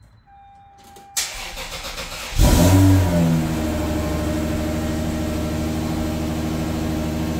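Lexus SC300's 2JZ-GE inline-six cranking on the starter for about a second, then catching with a brief rev and settling into a steady idle. It is the first start through its newly installed mid pipe and mufflers.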